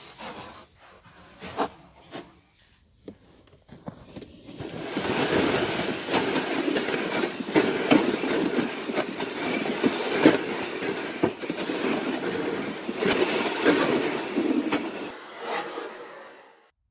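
Boots crunching over snow on a frozen reservoir while a sled pulled on a rope scrapes along the snowy ice behind. The sounds are light and scattered at first, become a continuous gritty scraping with many small crunches about four seconds in, and fade out near the end.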